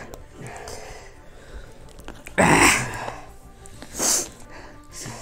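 Short, breathy outbursts from a person eating very spicy noodles: a loud gasping burst about two and a half seconds in and a sharp hiss about four seconds in, over faint background music.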